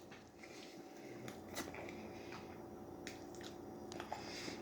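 Faint room tone with a few soft, scattered clicks and light handling noises.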